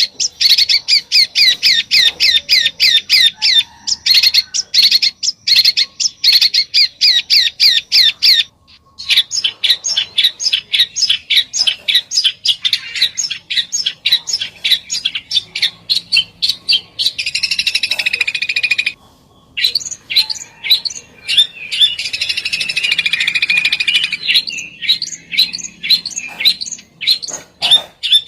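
A songbird's 'besetan' call: fast strings of sharp, high, clipped notes, several a second, broken by short pauses, with two stretches of harsher, buzzier chatter in the second half.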